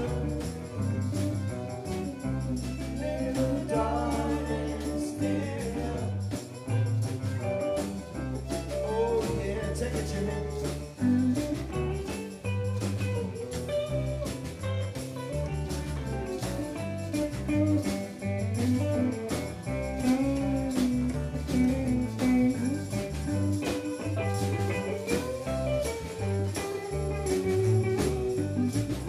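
Live band playing reggae on electric guitars and drums, with a steady high percussion beat running through and singing at times.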